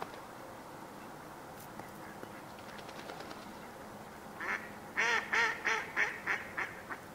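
Mallard hen quacking: a run of about seven loud quacks, about three a second, starting a little past the middle and tailing off at the end, the typical descending quack series of a female mallard.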